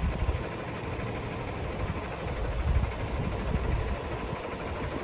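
Diesel engine of a KAMAZ-chassis Galichanin truck crane idling steadily.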